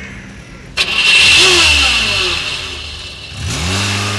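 A car engine starts with a sudden loud burst about a second in and is revved, its pitch falling back as it settles. It is revved up again near the end and held there.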